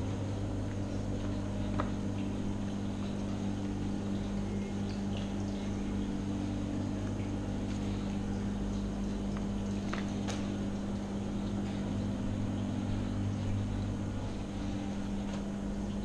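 A steady low machine hum, with two faint clicks, one about two seconds in and one just past the middle.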